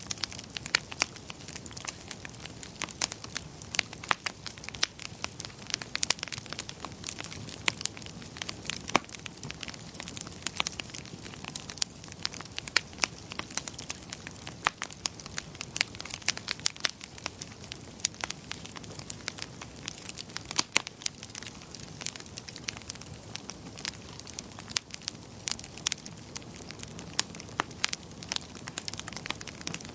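Wood fire crackling and popping steadily, with many sharp irregular snaps over a soft low rumble of the burning logs.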